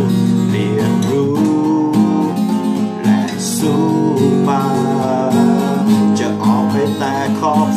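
Acoustic guitar being strummed, chords ringing with a steady rhythm.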